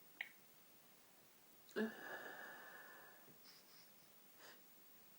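A person's breath with a thin whistling tone, sudden and loud about two seconds in and lasting about a second, then a faint breath near the end, between sneezes in a sneezing fit from a cold.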